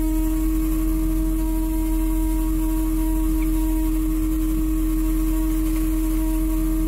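Steady one-pitched hum from a fishing boat's machinery, held unchanged over the low drone of the boat's engine.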